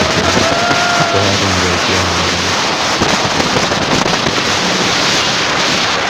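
Wind buffeting the phone's microphone from a moving open safari jeep, with the vehicle's running noise on the dirt track underneath.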